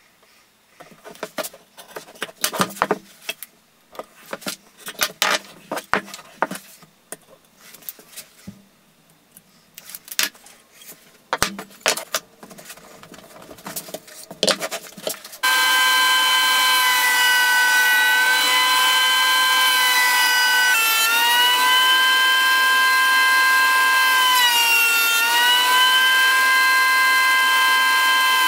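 Clicks and tape noises from wooden strips being handled and taped to a block. About halfway through, a benchtop thickness planer starts running loudly with a high whine that is steady apart from a couple of brief dips in pitch as the wood feeds through under load.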